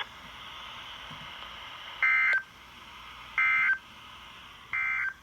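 EAS/SAME end-of-message data bursts from a NOAA Weather Radio broadcast: three short, shrill digital chirps, about a second apart, over faint radio hiss. They signal the end of the alert-system test message.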